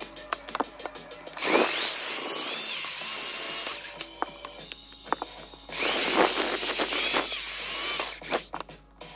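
Electric drill with a step drill bit boring holes through the thin wall of a clear plastic container. It makes two runs of about two seconds each, starting about a second and a half in and again about six seconds in, with quieter pauses between.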